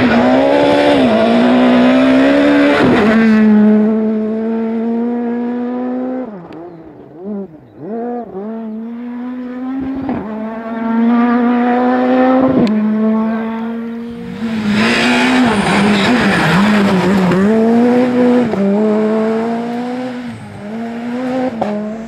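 Rally cars driven flat out on a gravel stage, one after another: a high-revving engine note climbs through the gears and drops with each shift or lift. Loud gravel spray and tyre noise come as the cars pass close, about the first three seconds and again past the middle. The first car is a Skoda Fabia S2000 with its two-litre naturally aspirated four-cylinder.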